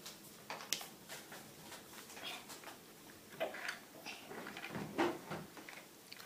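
Faint, irregular clicking and knocking at an uneven pace, with a few sharper clicks.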